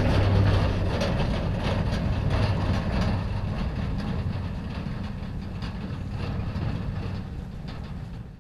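Pickup truck towing a stock trailer driving away over rough grassland: its engine and the trailer's rattle fade steadily.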